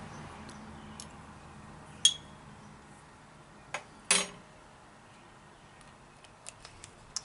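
A metal spoon is set down with a short ringing clink about two seconds in, followed by a duller knock. A few light ticks near the end come as the small glass hot-sauce bottle is handled.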